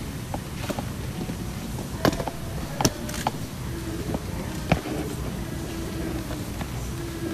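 Steady room noise with a few sharp clicks or knocks, the loudest about two, three and four and a half seconds in.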